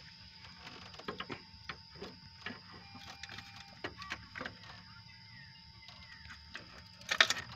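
Scattered light clicks and knocks, with one louder sharp clatter about seven seconds in; no engine is running.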